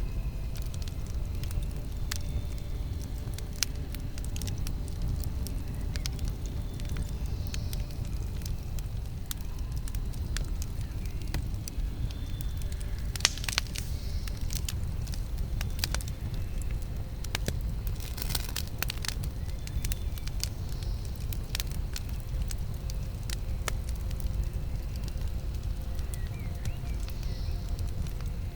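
Campfire burning with a steady low rumble and scattered crackles and pops, with a short flurry of sharper pops about thirteen seconds in and again around eighteen seconds in.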